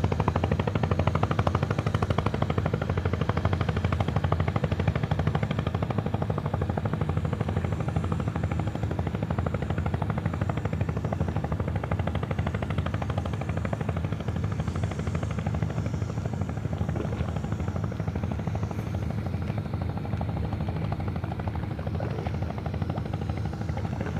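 Fishing boat's engine running steadily with a fast, even chugging beat.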